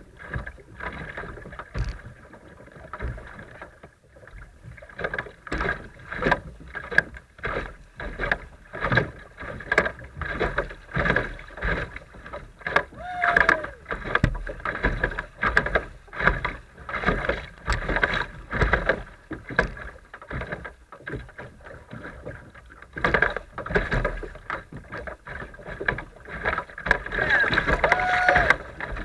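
River riffles rushing and slapping against a plastic kayak's hull in irregular splashes. Water breaks over the bow near the end, where the splashing is loudest.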